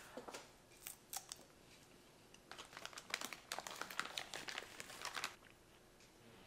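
Close-up chewing of a bite of spicy teriyaki beef jerky: a few crisp clicks in the first second, then a dense run of crackly clicking mouth sounds for about three seconds.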